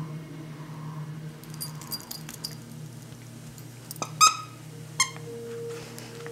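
Light jingling of a dog's collar tags, then a plush squeaky dog toy squeaking twice, loud and short, about four seconds in and again a second later.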